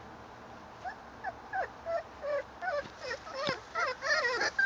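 Four-week-old bulldog puppies whimpering in short calls that rise and fall in pitch. The calls start about a second in and come faster and louder toward the end.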